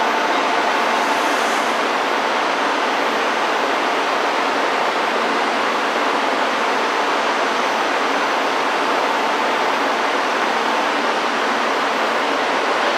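E2 series Shinkansen train standing at the platform: a steady, even rushing noise from its running equipment, with no rise or fall of a passing train.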